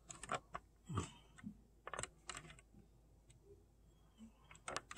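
Scattered light clicks and taps from a camera being handled and repositioned on a tripod, a few in the first two and a half seconds and a couple more near the end.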